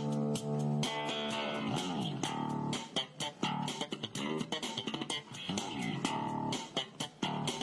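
Background music led by plucked guitar over a bass guitar line, with notes that slide in pitch.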